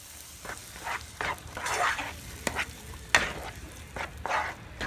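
Sliced onions in sweet chili sauce sizzling in a frying pan while a utensil stirs them, scraping across the pan in quick, irregular strokes, with one sharper clack a little past three seconds in.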